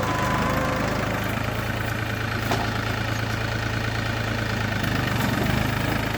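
New Holland 4710 tractor's diesel engine running steadily under load, pulling a plough in four-wheel drive in first gear. A single brief click about two and a half seconds in.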